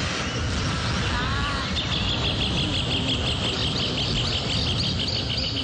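Outdoor ambience: a steady broad noise, with a high chirp repeated rapidly at one pitch starting about two seconds in.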